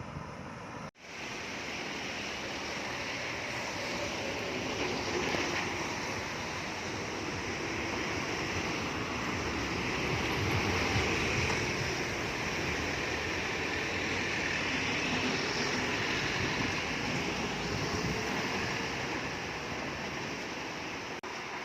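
Road traffic of heavy vehicles: steady engine and tyre noise that swells to its loudest about halfway through as a vehicle goes by, after a brief drop-out about a second in.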